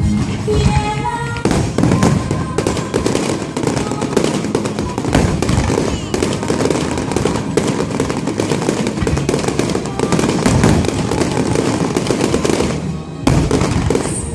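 Aerial fireworks bursting and crackling in a dense, rapid barrage, with music playing underneath. There is a brief lull near the end before the bursts resume.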